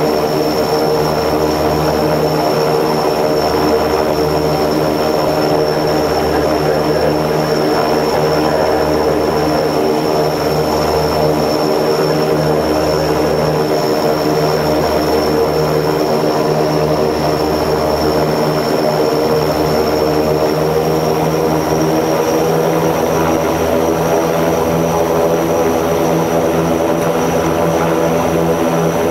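An Antonov An-24's Ivchenko AI-24 turboprop engines running at low power on the ground, heard inside the cabin. A steady propeller drone carries a thin high turbine whine and a slow low throb that swells about every two seconds.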